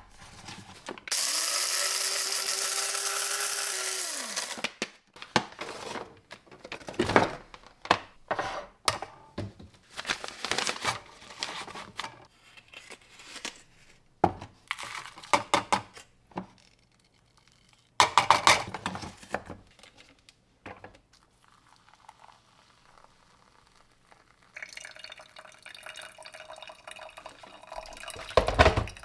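Electric coffee grinder running for about three seconds, its motor humming and winding down as it stops; then scattered clicks and knocks as the grounds are scooped into a pour-over filter cone, and near the end water poured over the grounds.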